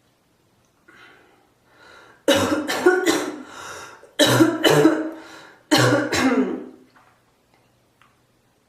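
A person in a coughing fit: a couple of faint breaths, then three loud bouts of two or three hacking coughs each, following one another closely.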